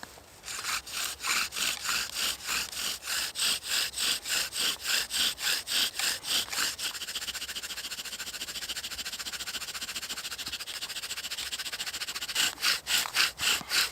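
Bow drill being worked for a friction fire: the bow sawing back and forth spins the wooden drill against the hearth board, each stroke a rhythmic rasping, about three a second. For several seconds in the middle the strokes come quicker and quieter, then strong strokes return near the end.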